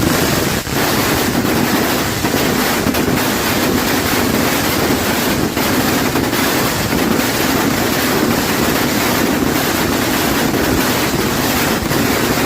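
Steady, loud rushing noise, like strong wind buffeting the microphone, with no clear bangs or whistles.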